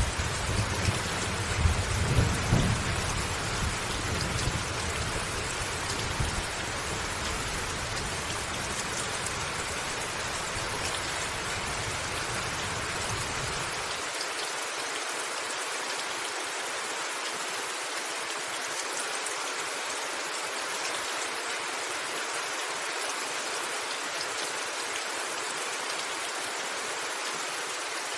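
Steady heavy rain hissing, with a rumble of thunder in the first few seconds that dies away. About halfway through the deep rumble is gone altogether, leaving only the rain.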